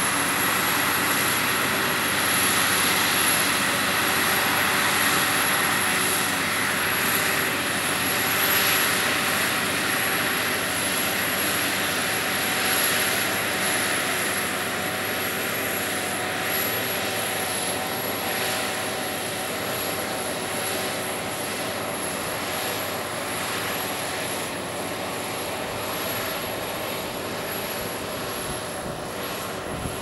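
New Holland T8.330 tractor's six-cylinder diesel engine running steadily under load as it pulls a reversible plough through heavy wet soil, slowly fading.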